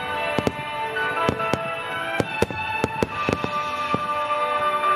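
Aerial firework shells bursting in rapid succession, about two to three sharp bangs a second, over music with sustained notes.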